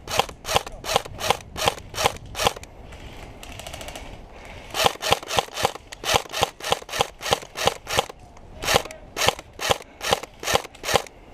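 Airsoft gun firing single shots in quick succession, a string of sharp cracks about three to four a second. The firing pauses for about two seconds early on, then resumes.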